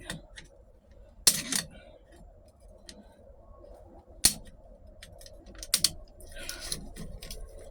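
Metal tools clicking and scraping against the clutch pack and snap ring of a 4L60E transmission drum being pried apart: a sharp click about a second in, another near four seconds, two quick ones near six, then a short scrape.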